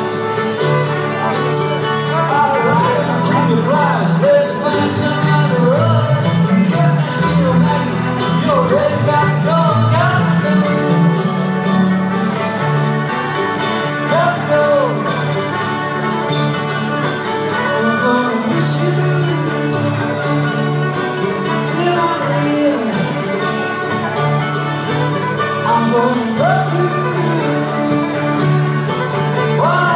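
Live band playing an instrumental passage: a fiddle carries a wavering melody over strummed acoustic guitar and electric guitar.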